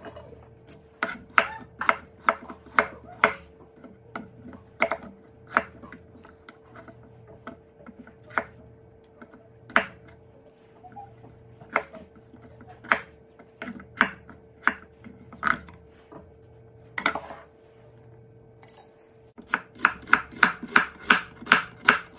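Chef's knife chopping russet potatoes on a wooden cutting board: sharp knocks of the blade on the board, irregular and spaced out. Near the end the chopping turns faster and even, about three strokes a second, as a red onion is cut.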